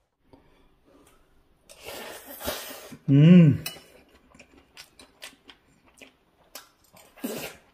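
A metal spoon scraping and clicking against a ceramic bowl as rice, cabbage and a soft poached egg are mixed and scooped. About three seconds in there is one short voiced sound from a person, and light spoon clicks follow.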